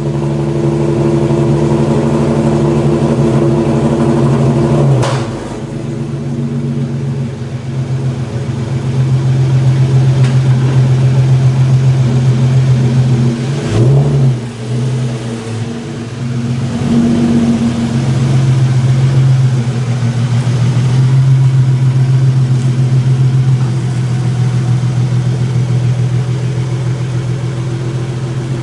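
Hyundai Genesis Coupe 3.8's V6 engine running at low speed while the car is driven out of the garage. Its steady hum shifts after a click about five seconds in and dips briefly about halfway through.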